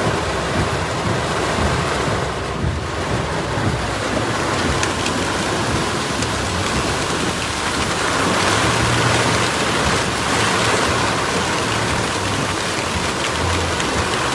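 Heavy downpour: a dense, steady hiss of rain hitting surfaces, with a few low rumbles in the middle and near the end.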